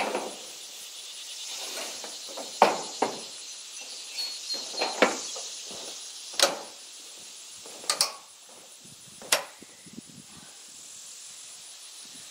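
Footsteps on a steel sliding-door panel lying on the ground, the thin corrugated sheet metal knocking and clanking under each step. There are about eight sharp knocks at uneven intervals.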